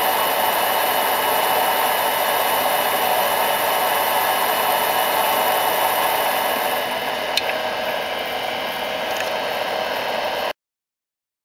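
Micro lathe running steadily, spinning a small piston blank in its chuck, with a single sharp click about seven seconds in. The sound cuts off abruptly near the end.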